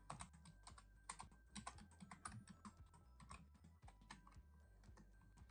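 Faint computer keyboard typing: quick, irregular keystrokes that thin out in the second half, as an email address is typed.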